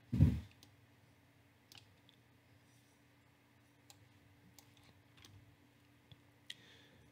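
Faint computer mouse clicks, single and scattered about a second apart, with a brief low thump just at the start.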